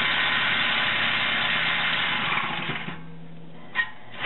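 A power tool running steadily on an exhaust bolt under the car, cutting out about three seconds in, then a single short click.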